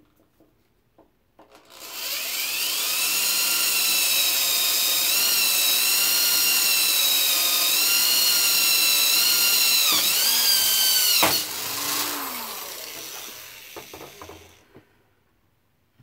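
Handheld electric drill boring a hole through metal: the motor spins up and runs at a steady high whine, its pitch dipping briefly a couple of times as the bit loads up, then the trigger is released and the motor winds down with a falling tone.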